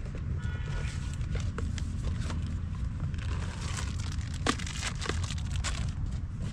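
Plastic bag crinkling and rustling, with scattered small clicks and knocks, as toiletries and a towel are dug out of a bicycle pannier. A steady low rumble runs underneath.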